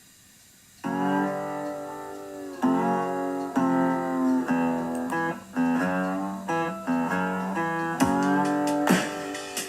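Background music: a guitar playing plucked and strummed chords on a steady beat, starting about a second in.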